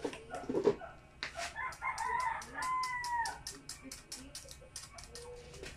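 A rooster crowing once, a call of about two seconds that drops in pitch at its end. Quick light taps and scratches of a paintbrush working paint onto the table's base run underneath.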